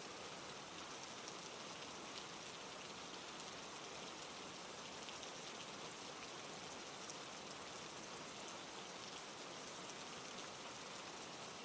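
Steady rain falling: an even hiss with scattered light drop ticks, unchanging throughout.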